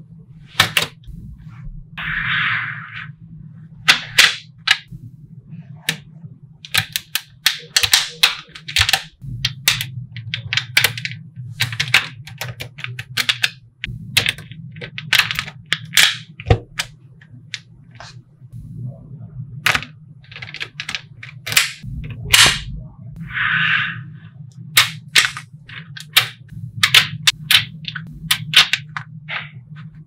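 Small magnetic balls clicking and snapping together as strips and sheets of them are pressed into place: many sharp, irregular clicks, with a few short sliding rustles. A steady low hum runs underneath.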